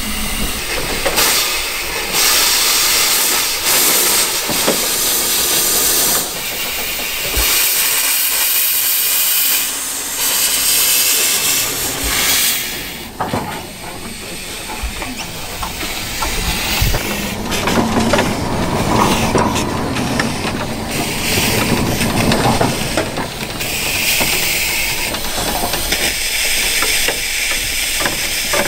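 A one-foot gauge steam locomotive hissing steam in gusts that swell and fade, with an occasional knock.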